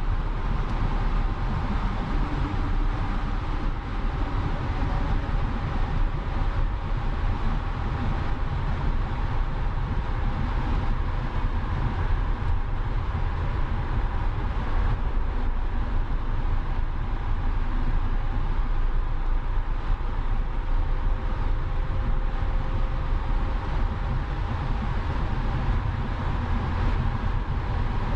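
BMW E91 325i travelling at high Autobahn speed: a steady rush of wind and road noise with the straight-six engine's drone beneath it, holding an even pace without revving up or down.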